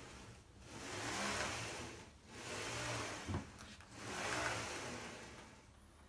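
CNC router gantry pushed by hand along its linear rails, its plastic energy chain rolling and folding with it: three swells of rolling hiss and rattle, each a second or two long, with a knock about halfway through.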